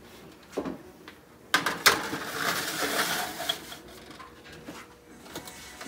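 Metal sheet pan of ceramic ramekins set down on a wire oven rack with two sharp clanks, then a scraping rattle as it is pushed along the rack.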